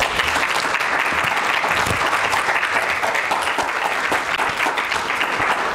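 Lecture audience applauding, a steady patter of many hands clapping.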